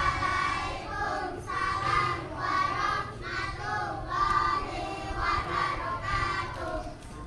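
A group of children singing together, a run of held notes one after another.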